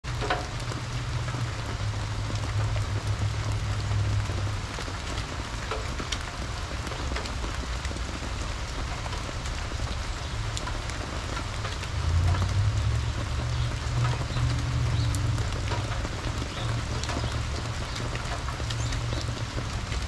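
Steady rain falling on leaves and ground, with many scattered drops ticking close by, and water spilling over the rim of a birdbath fountain. A low rumble runs underneath and swells about twelve seconds in.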